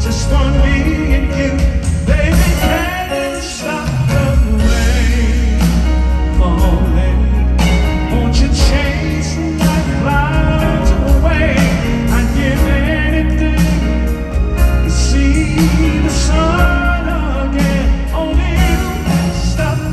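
Live band playing a pop ballad through a hall sound system, with a male lead singer singing long gliding vocal runs over grand piano, drums and keyboards.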